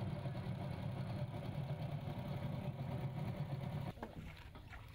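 A small boat's engine running steadily with a low hum, cutting off suddenly about four seconds in, leaving only faint clicks.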